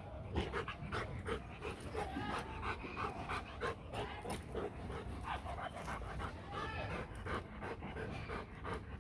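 Rottweiler panting in quick, even breaths, about three a second.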